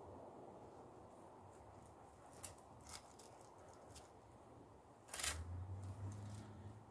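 Faint clicks and rustles of a leather belt being pulled through a metal ring buckle, a few separate ticks, then a louder rustle about five seconds in followed by a low hum.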